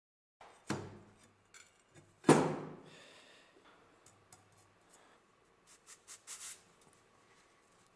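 Rusty steel knife blade knocked down on a wooden workbench, two knocks about a second and a half apart. The second knock is the louder one and rings briefly. Light clicks and cloth rubbing follow as the blade is picked up and wiped with a rag.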